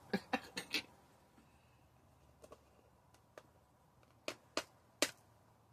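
Light clicks and taps of a wax pick-up pencil and small gems against a plastic gem tray: a quick cluster in the first second, then scattered single taps, the sharpest about five seconds in.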